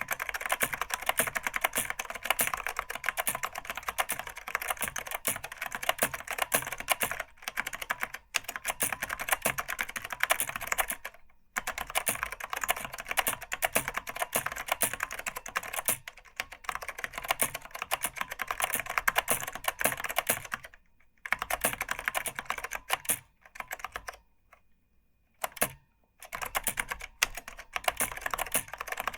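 Fast continuous typing on an Apple Extended Keyboard II with Mitsumi Standard Mechanical tactile switches and PBT keycaps: a dense run of key clicks. It breaks off in short pauses and stops for about two seconds near the end before resuming.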